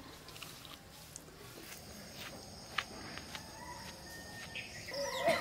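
Faint rural outdoor ambience with a steady high-pitched insect drone, a few soft clicks, and a dove starting to coo near the end.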